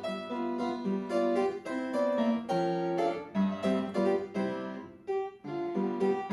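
Instrumental music on a keyboard instrument, with notes struck one after another in a quick, even rhythm and a brief pause about five seconds in.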